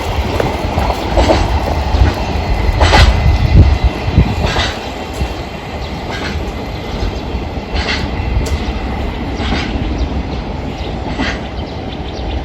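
A train rolling past, its wheels clacking over a rail joint about every second and a half, a little quieter after about five seconds.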